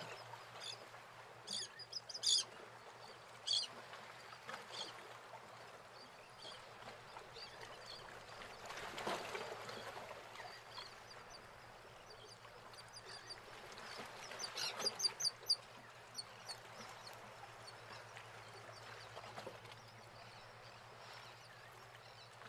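Faint outdoor ambience of birds chirping in short, scattered calls, with a quick run of chirps about two-thirds of the way through, over soft sea waves washing in, swelling twice.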